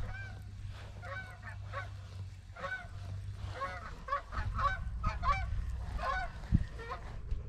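A flock of geese honking: many short calls, repeated and overlapping, with a low rumble underneath.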